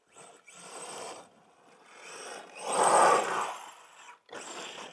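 Losi DBXL-E 2.0 electric RC buggy running on a loose dirt track, its motor and drivetrain whirring with tyres scrabbling on the dirt. The sound rises and falls and is loudest about three seconds in.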